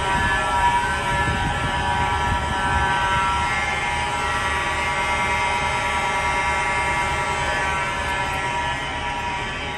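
Fire alarm horns, including a Wheelock Exceder, sounding continuously: a steady buzzing horn tone with many overtones. A low rumble runs underneath, and the horns get a little fainter near the end.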